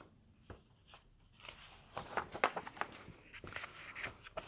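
Faint handling noises: scattered light clicks and rustles, starting about a second and a half in.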